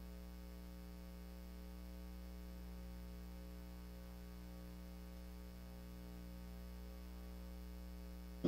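Steady electrical mains hum, a low buzz with evenly spaced overtones that does not change.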